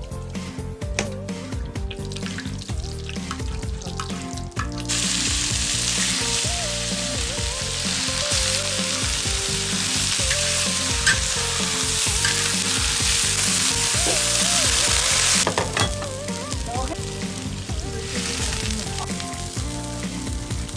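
Food frying in hot oil, a loud sizzle that starts suddenly about five seconds in and drops back to a fainter sizzle about fifteen seconds in. Before the sizzle starts there is a run of sharp knocks.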